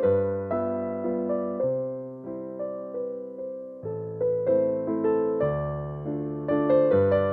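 Background music: a gentle piano or electric piano piece playing a slow run of notes, each struck and fading.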